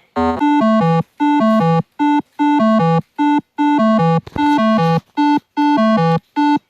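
Synthesizer keyboard music: a melody of short, clipped phrases, each cut off by a brief silence.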